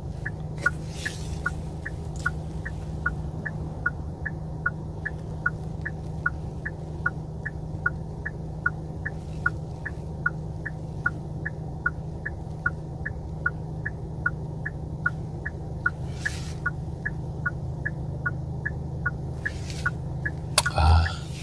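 A car's indicator ticking steadily, about two and a half clicks a second, over the low steady hum of the taxi's idling engine inside the cabin.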